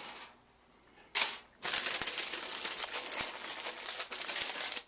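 Aluminium foil crinkling and crackling as it is handled. A brief rustle about a second in, then dense crinkling from about a second and a half on.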